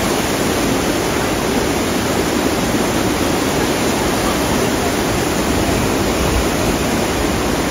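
Mountain waterfall pouring down a rock cliff: a steady, unbroken rush of falling and splashing water.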